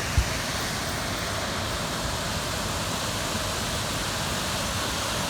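Waterfall: steady, even rush of falling water, with one low thump on the microphone just after the start.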